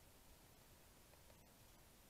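Near silence: a faint, even hiss with nothing standing out.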